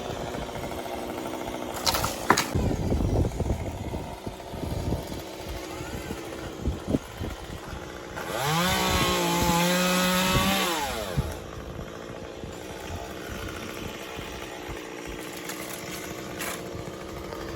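Chainsaw running at idle, with a couple of sharp knocks about two seconds in. Near the middle it is revved to full speed for about three seconds, as for a cut, and then drops back to idle.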